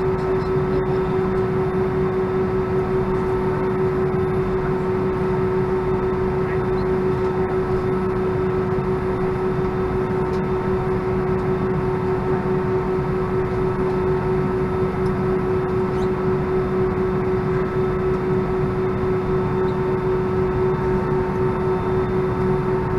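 Airbus A319 airliner cabin noise while taxiing: a steady hum from the idling engines and air conditioning, with one strong constant tone over it.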